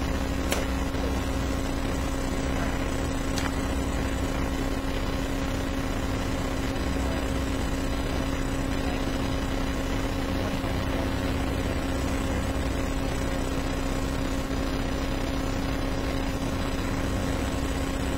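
Steady hiss with a constant hum and no speech: room tone. Two faint clicks come in the first few seconds.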